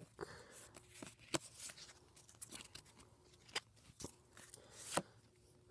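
Pokémon trading cards being handled and shuffled by hand: faint rustles of card stock with scattered light clicks, two sharper snaps about a second and a half in and near the end.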